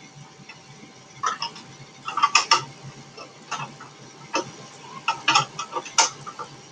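Irregular small plastic clicks and taps as the bobbin cover is pulled off and the bobbin is lifted out of a Brother LX27NT sewing machine, about a dozen clicks, some in quick pairs.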